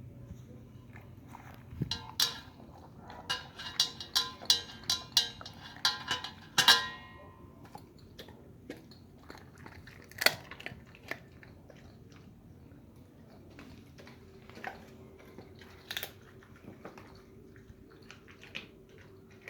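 A dog, a Belgian Malinois, crunching and chewing its food: a quick run of loud crunches in the first several seconds, then slower, sparser chews.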